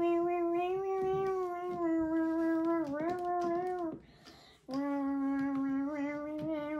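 A child singing two long, held 'wah' notes: the first lasts about four seconds and dips briefly near its end; the second, slightly lower, starts after a short break and lasts about two seconds.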